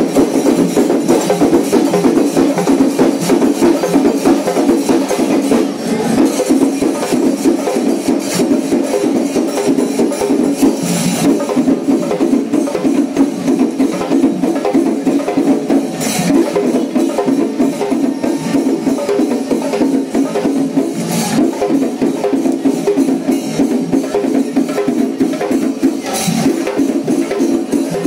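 Traditional Kerala temple percussion ensemble playing: many drums struck in a fast, dense, unbroken rhythm, with cymbals and a few sharper accents about every five seconds.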